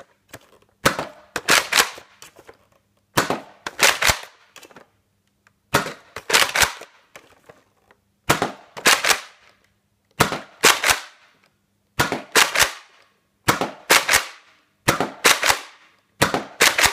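Nerf Sonic Ice Retaliator spring-plunger dart blaster fired shot after shot, about nine times, one every 1.5 to 2 seconds. Each shot is a quick cluster of two or three sharp plastic clacks as the slide is pulled back and pushed forward to prime it and the dart is fired.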